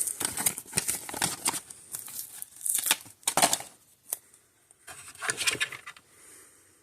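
Double-sided foam tape being handled: irregular bursts of scratchy tearing and rustling as the tape and its backing are worked and pulled.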